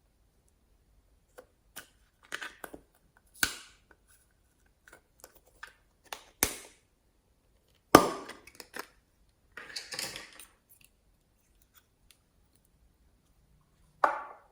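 Slime being squeezed and pulled by hand, giving irregular sharp pops and short crackling squelches with quiet gaps between them. The loudest pop comes about eight seconds in.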